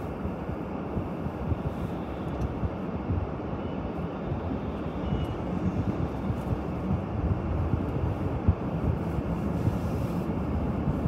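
Car engine and road noise heard from inside a car as it waits at a traffic light and then pulls away, growing slightly louder toward the end.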